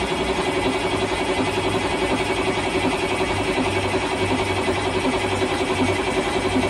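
Caterpillar 3208 V8 marine diesel running just after a first start, with an uneven low beat: it is firing on only a couple of cylinders because air is still in the fuel lines after the injectors were refitted.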